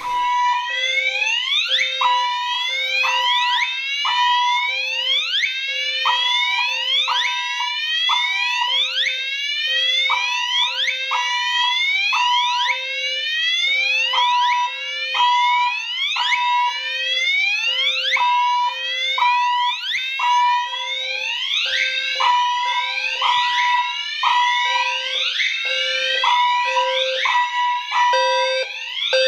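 Several fire alarm sounders going off together: many overlapping whoops rising in pitch, repeating quickly, mixed with short on-off beeps at a low and a higher pitch. Loud and continuous, starting abruptly at the outset.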